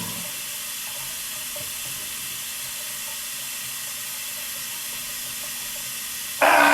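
Steady hiss; near the end a loud, steady machine whirring starts abruptly.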